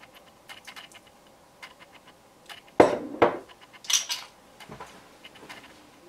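Light clicks and clatter of a ring of plastic measuring spoons and a plastic measuring cup being handled and knocked against each other and the wooden cutting board, with a few louder knocks about three and four seconds in.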